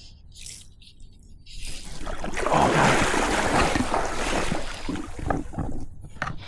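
Water splashing and sloshing close by, starting about a second and a half in, loudest for a couple of seconds and then easing off, with a few small knocks near the end.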